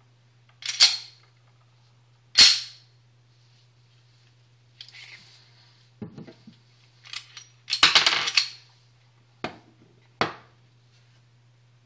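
Metallic clacks and clicks of a Glock 22 .40 pistol being handled: slide and magazine actions, with two loud sharp snaps in the first few seconds and a longer rattling clatter about eight seconds in.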